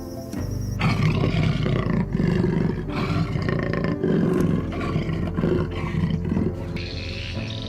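A big cat roaring: a run of deep, rough roars in repeated swells, starting about a second in and lasting about six seconds.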